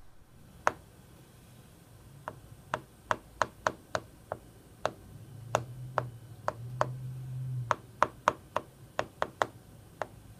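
A 3D-printed conductive-filament stylus tapping on an iPhone's glass screen as it writes: about twenty sharp clicks at an uneven pace. A faint low hum swells in the middle.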